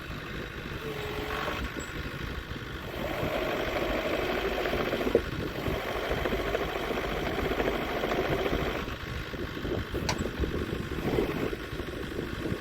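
JCB 85Z-1 midi excavator's diesel engine running. It grows louder about three seconds in and eases back near nine seconds, with a sharp knock around the middle and a click near the end.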